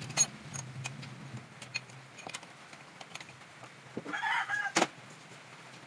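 Sharp metallic clinks of hand tools on the engine, the loudest just after the start and near the end, with a short chicken call about four seconds in.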